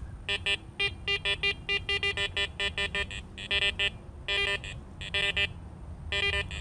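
Garrett ACE Apex metal detector giving short electronic beeps in quick succession, with a few longer tones, as its coil is swept over iron nails lying almost against coins. The iron responses come with tones popping out above them: good targets heard through iron masking.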